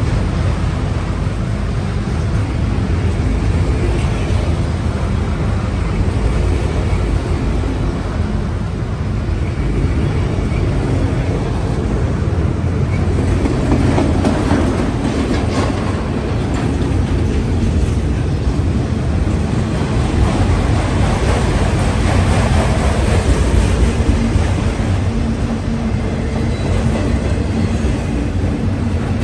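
Freight train of autorack cars rolling past: steady noise of steel wheels running on the rails, with a faint clickety-clack.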